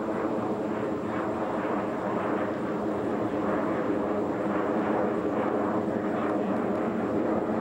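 Aircraft engine droning steadily, a continuous hum made of many steady tones.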